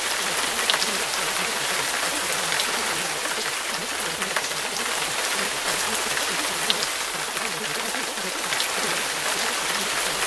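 Steady recorded rain hiss with scattered sharp drop ticks, used as the background masking track of a subliminal audio.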